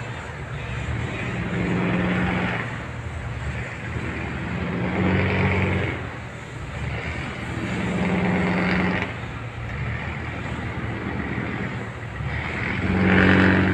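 Fishing boat engine running, revved up in four swells a few seconds apart, the last the loudest.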